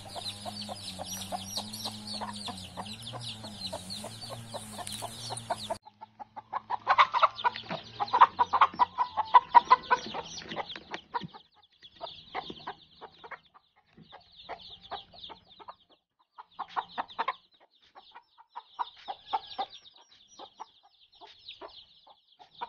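Mother hen clucking rapidly, loudest in a run partway through, while her chicks peep high and fast the whole time. A steady low hum runs underneath for the first six seconds or so, then cuts off suddenly.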